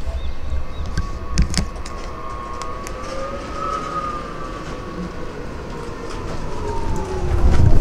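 Electric shuttle tram approaching, its motor whine a steady tone that rises slightly and then falls in pitch as it slows to a stop. A low rumble swells near the end.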